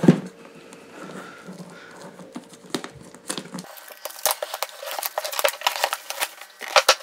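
A thump as the box is handled, then plastic shrink wrap being picked at and peeled off a cardboard box, crinkling in quick crackles through the second half.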